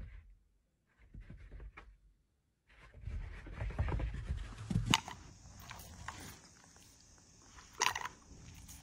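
A cat pouncing and scuffling in deep snow, heard as soft uneven low noise. A dog then noses and sniffs at a cardboard milk carton, with one sharp knock near the end.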